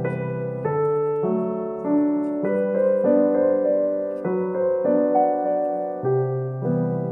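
Solo piano background music, gentle chords with the notes changing about every half second.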